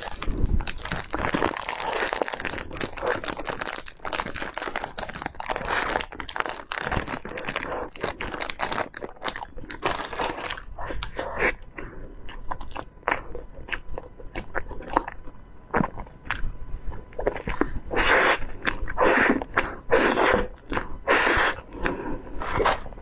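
Close-miked plastic wrap crinkling around a soft cream cake, then biting and chewing of the cake with wet mouth sounds.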